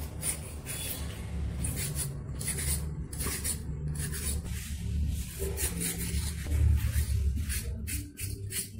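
Metal vegetable peeler scraping the skin off a raw green banana in repeated short, rasping strokes, about two a second.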